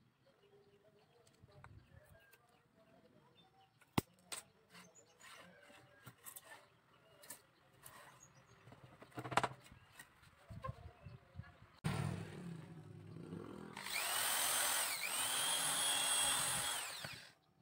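Light clicks and taps of thin bamboo strips and pegs being handled. About fourteen seconds in, an electric hand drill spins up and runs for about three and a half seconds, boring a peg hole through a bamboo frame joint. Its whine rises twice before it stops.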